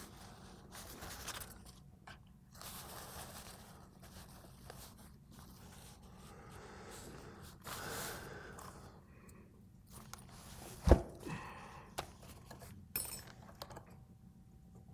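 Rustling paper and quiet scraping as a Hardinge lathe cross slide's steel parts and an Allen key are handled. One sharp metallic click about eleven seconds in is the loudest sound, with a few lighter clicks after it.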